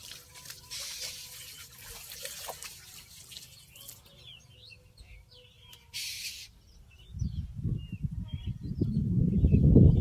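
Small birds chirping repeatedly over trickling water. From about seven seconds in, a loud, low, irregular rumbling with knocks covers them.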